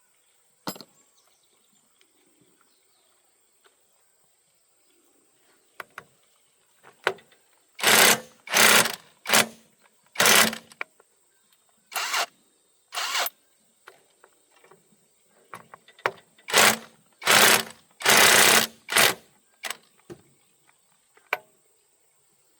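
A power tool run in about ten short bursts, each under a second long, starting about eight seconds in and ending a few seconds before the end. A single sharp click comes near the start.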